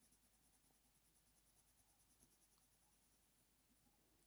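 Near silence, with faint scratching of a white Faber-Castell Polychromos coloured pencil rubbed over hot-press watercolour paper to blend the layers beneath.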